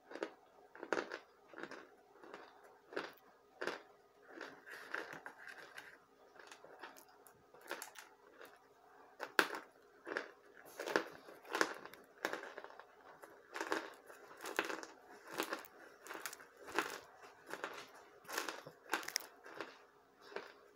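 Close-up chewing of a mouthful of packed cornstarch chunks: soft, squeaky-dry crunches repeating about one to two times a second.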